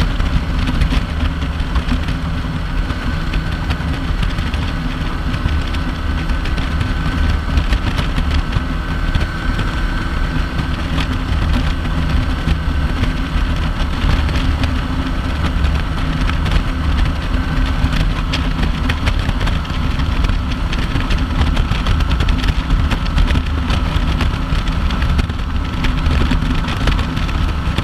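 Kawasaki Vulcan 900 V-twin engine running steadily at highway cruising speed, mixed with wind and road noise rushing over the camera.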